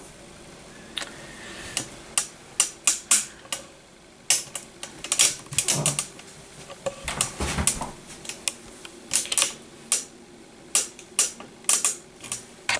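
A rapid, irregular run of sharp clicks and knocks, often several a second in clusters, with a couple of duller low thumps about halfway through.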